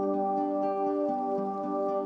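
Calm new-age background music: sustained mellow tones over a slowly moving low line, with soft plucked notes.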